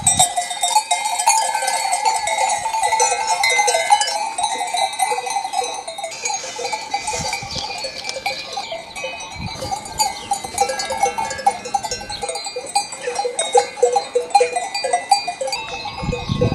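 Many small bells on a grazing flock of goats clanking continuously and irregularly as the animals move.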